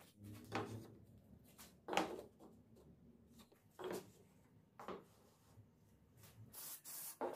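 Small wooden strips being set down and shifted on a wooden workbench: about four light, separate knocks a second or two apart, then a short sliding rub of wood on wood near the end.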